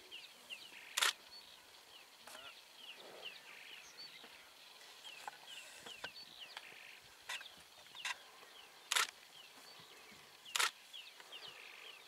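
Camera shutter clicking five times at irregular intervals, the loudest sounds here, over a constant background of short, high, falling chirps.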